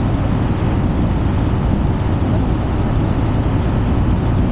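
Steady, loud rushing noise with a flickering low rumble, from wind buffeting the microphone of a camera held above a sailboat under way.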